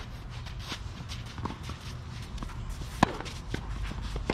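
Tennis court sounds: footsteps and shuffling on the court, with scattered sharp knocks and one loud sharp tennis ball impact about three seconds in.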